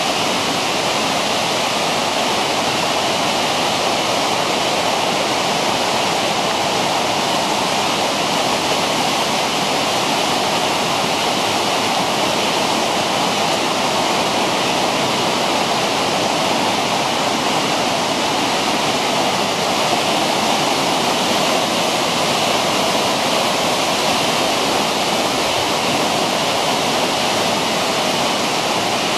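A rocky mountain stream's white water rushing over stones, a loud, steady, unbroken noise.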